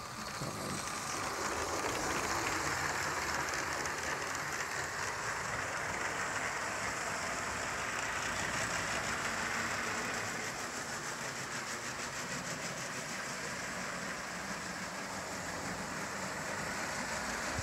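Motorised Lego train with two train motors running on plastic Lego track: a steady whir with a fast, light clicking of wheels over the track. It grows a little quieter about ten seconds in.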